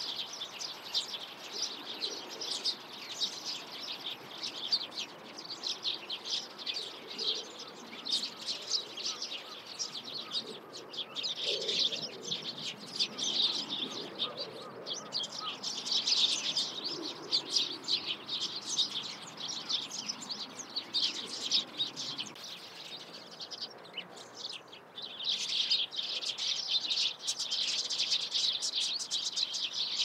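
Several Eurasian tree sparrows chirping, many short chirps overlapping in a steady busy chatter. The chatter thins briefly about three quarters of the way through, then picks up again.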